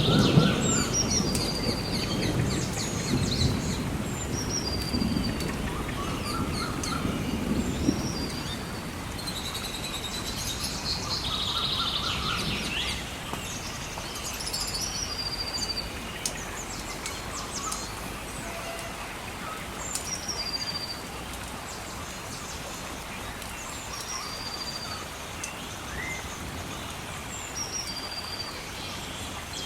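Thunder rumbles low at the start and fades away over the first several seconds, while birds chirp over and over in short repeated calls. A fire crackles with small sharp pops over a steady wash of rain or river water.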